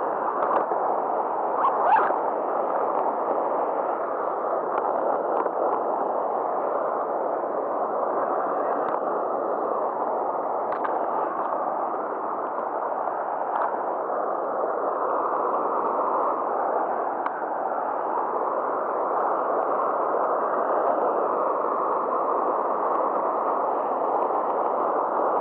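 Steady rush of turbulent water churning below a weir, with a few faint clicks over it.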